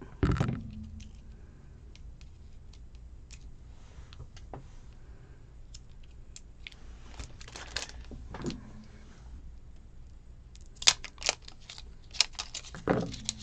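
Handling noises from a roll of washi tape being worked with fingernails and a small tool to find its end: a low thump about a quarter-second in, scattered light clicks and rustles, and a run of sharper clicks and taps near the end.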